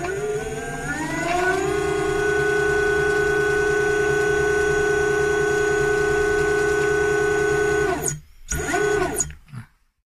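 Brushless outrunner motor whining as it spins up over about two seconds, then holding one steady pitch, its speed held by cruise control. Near the end it cuts off, gives one short spin that rises and falls, and stops.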